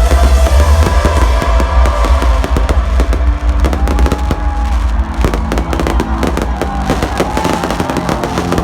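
Fireworks banging and crackling in quick, irregular succession over loud electronic dance music with a heavy bass.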